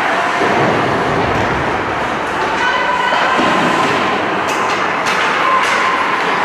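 Steady, loud ambience of an ice hockey game in a large indoor rink: play on the ice with skates and sticks. A voice calls out, held, about three seconds in, and a few sharp clacks of sticks or puck come near the end.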